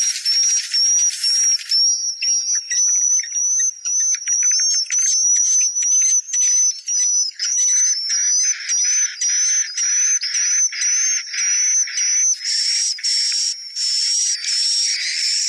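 Swiftlet lure sound: recorded swiftlet calls of rapid high chirps and clicks over a steady high whistle-like tone, with no low end. A dense buzzing stretch gives way to separate chirps about two seconds in and returns near the end.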